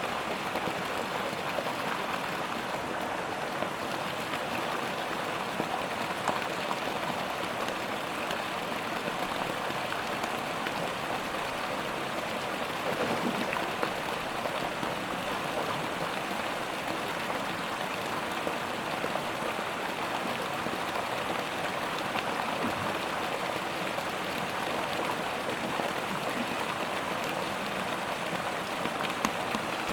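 Steady hiss of water, the even rush of rain or running water, with a few faint ticks.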